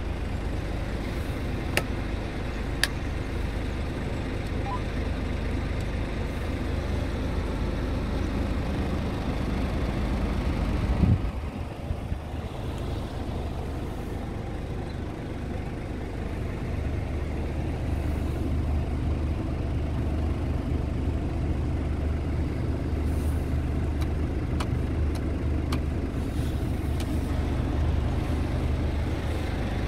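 Scania R tractor unit's diesel engine idling steadily, heard from inside the cab as a low, even hum. There are two sharp clicks a couple of seconds in, and one brief loud knock about eleven seconds in.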